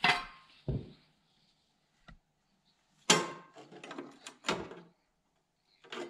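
Several sudden knocks and clunks of hands handling welded sheet-metal bodywork. Some carry a short metallic ring, with loud knocks at the start and about three seconds in, and a duller thud just after the first.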